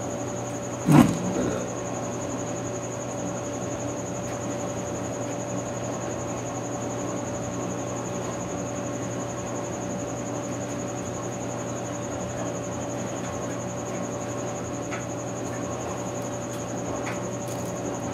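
A steady hum holding a few fixed tones, with one sharp knock about a second in and a couple of faint ticks near the end.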